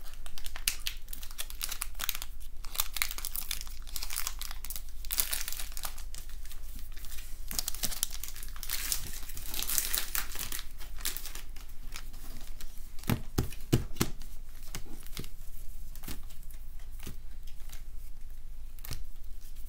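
Crinkling and rustling of a foil Pokémon booster-pack wrapper and cards being handled, with a few soft knocks a little past the middle.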